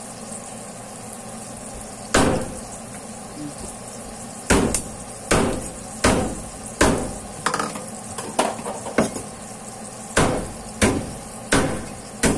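Garlic and ginger sizzling steadily in hot oil in a wok. From about two seconds in, about a dozen sharp knocks come roughly one or two a second and are the loudest sounds.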